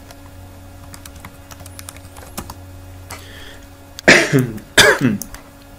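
Scattered faint computer keyboard and mouse clicks over a low steady hum, then about four seconds in a person coughs twice in quick succession, loud and close to the microphone.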